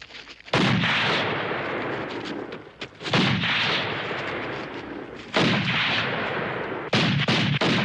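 Handgun fired repeatedly: four loud shots, the first three about two and a half seconds apart and the fourth quicker, each trailing a long rumbling echo.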